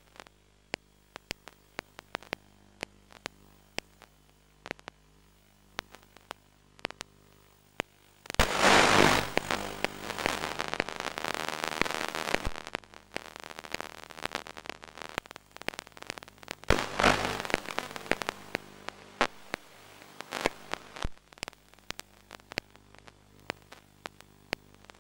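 Crackling radio static on the FPV video link's audio: scattered sharp clicks, and about eight seconds in a loud hiss of static that tapers off over the next ten seconds or so.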